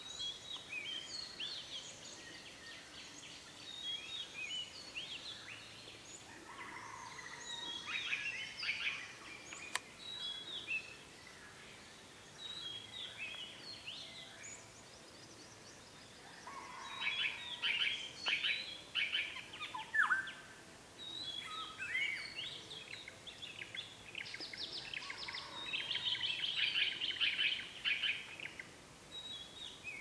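Dawn chorus: several birds singing and calling at once, short chirps and whistled notes at different pitches overlapping. Three louder spells of fast, repeated notes come about a quarter of the way in, just past halfway, and near the end.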